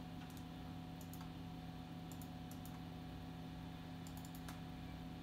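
Scattered faint clicks from operating a computer mouse and keyboard, over a steady low electrical hum.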